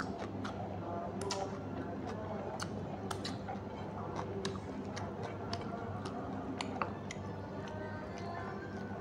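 Close eating sounds of a person eating rice and curry by hand: chewing and mouth smacks, and fingers mixing food on a plate. They come as an irregular scatter of small clicks and smacks over a steady low hum.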